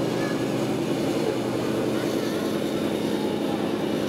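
Radio-controlled model truck running, a steady engine-like drone that holds an even pitch.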